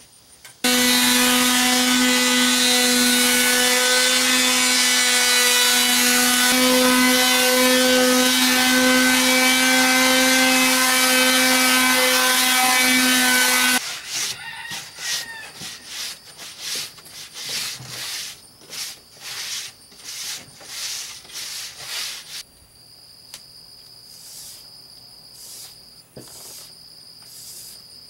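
Electric sander running steadily on painted plywood, sanding down the first coat before a second coat, then stopping abruptly after about thirteen seconds. A cloth then wipes the board in quick rubbing strokes, and crickets trill steadily near the end.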